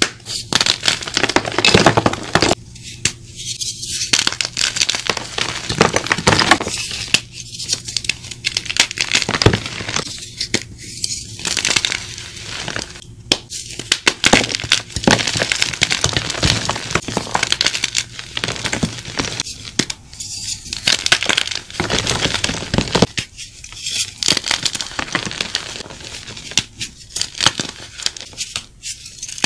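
Blocks of dyed gym chalk crunching and crumbling as they are squeezed and broken apart in bare hands. The crisp crackling comes in dense runs separated by short pauses.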